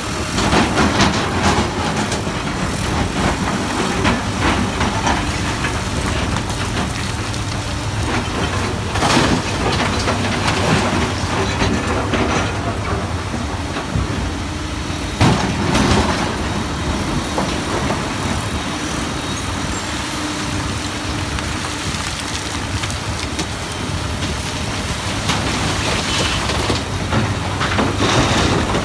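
Komatsu hydraulic crawler excavator's diesel engine running under load as the steel bucket digs and scrapes through broken rock, with rocks clattering and a few sharper knocks, the loudest about 9 and 15 seconds in.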